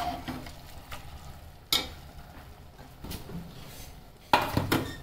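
Steel spatula stirring prawns in an earthenware clay pot as they sauté in oil, with a light sizzle of frying; the spatula knocks and scrapes against the pot once about a second and a half in and in a louder clatter near the end.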